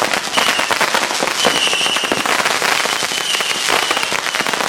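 Fireworks crackling and popping in a dense, rapid, continuous run of small cracks, with a high whistling tone coming and going several times.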